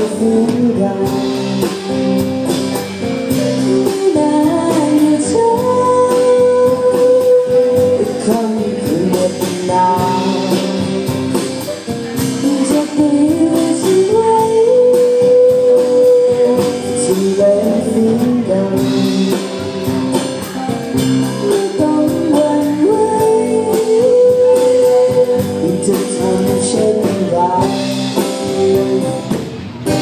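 Live band playing a song: a female singer with a microphone, holding long notes, over acoustic guitar, electric guitar and a drum kit.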